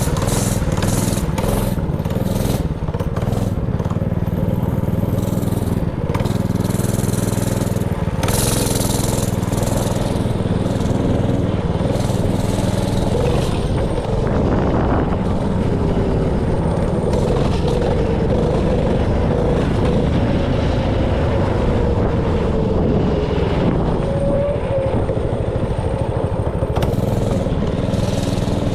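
Honda GX160 single-cylinder four-stroke engine on a mini bike running under load while being ridden, its pitch rising and falling with the throttle.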